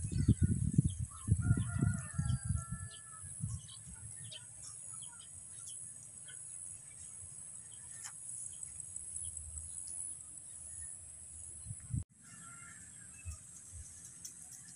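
Outdoor ambience: a few short bird calls over a steady high hiss, with low rumbling buffets on the microphone in the first few seconds.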